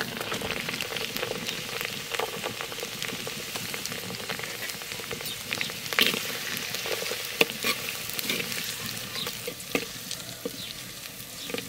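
Sliced onions sizzling in hot oil in a clay pot, with frequent sharp crackles, as they are stirred with a steel spatula.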